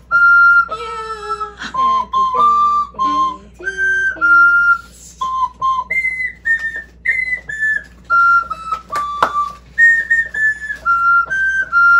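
Suzuki Andes 25F recorder piano, a recorder-like pipe played from a small keyboard and blown through a tube, playing a melody of clear single notes, each held briefly with short breaks between them.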